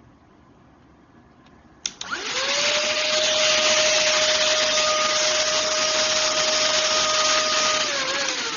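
Xiaomi Mijia cordless stick vacuum cleaner switched on with a click about two seconds in. Its motor spins up to a steady high whine over a loud rush of air. Near the end the whine drops in pitch.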